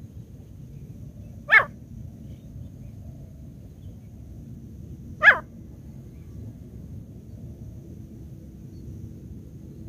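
Two short, loud animal calls, about four seconds apart.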